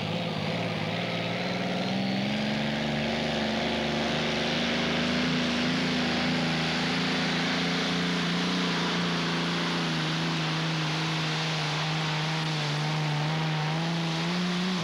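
Modified pulling tractor's engine running wide open as it drags a weight-transfer sled down the track. The note lifts a little about two seconds in, then holds steady.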